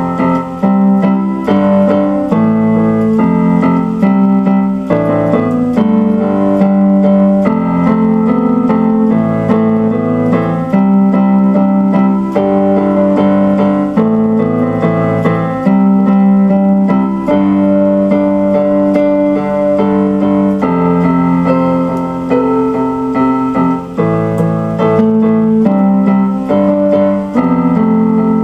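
Instrumental keyboard piano music: sustained chords and melody notes that change every second or two at a steady, moderate pace.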